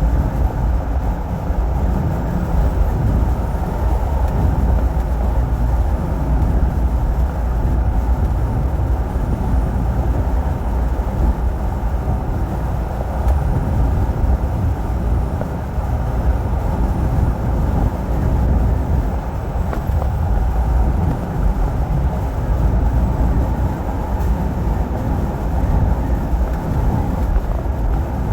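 Steady low rumble of a moving truck's engine and tyres, heard from inside the cab while driving.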